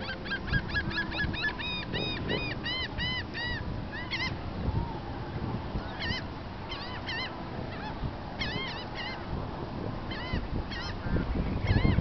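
Gulls calling: a fast run of sharp, arched cries in the first few seconds, then shorter bursts of calls every second or two, over a steady low rumble.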